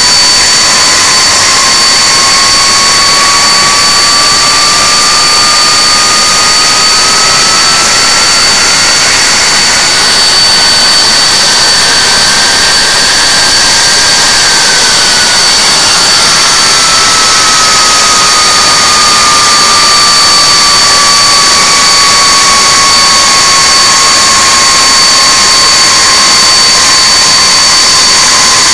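Handley Page Victor K2's Rolls-Royce Conway turbofans running on a ground run: a loud, steady rushing roar with a high whine. Under it, a second tone rises slowly in pitch for about the first half, then sinks back down.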